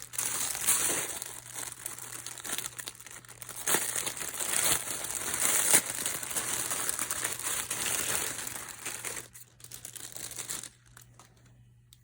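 Packaging crinkling and rustling as a thin scarf is pulled out of its wrapping and unfolded, in a dense run of small crackles that dies away near the end.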